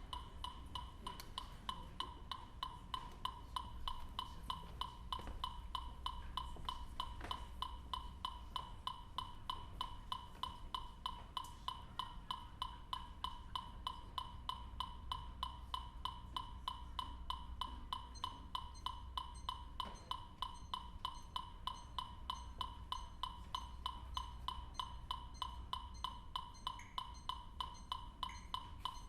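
A steady train of short electronic beeps, one clear pitch repeating about three times a second like a metronome pulse, with a faint low hum underneath.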